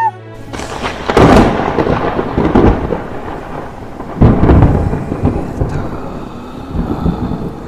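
Thunder sound effect: rolling rumbles with no clear pitch, loudest about a second in and again about four seconds in.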